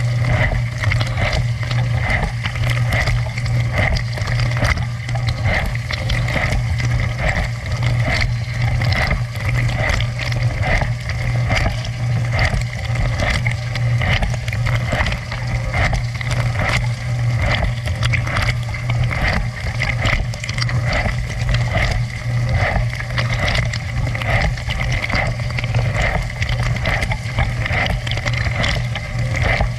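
Dishwasher running its wash cycle, heard from inside the tub: a steady pump-motor hum under continuous spraying and splashing of water against the walls and racks.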